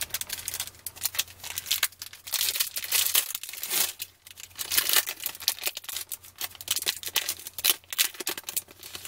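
A 1994 Classic Images football card pack's foil-lined wrapper being torn open and crinkled in the hands, a long run of sharp crackles and tears.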